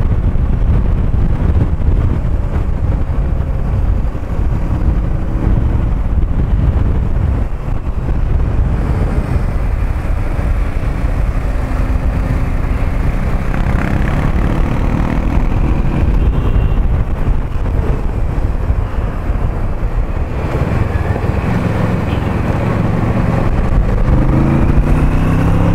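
Motorcycle engine running on the move, with wind and road noise over the rider's microphone; the engine note rises near the end as the bike accelerates.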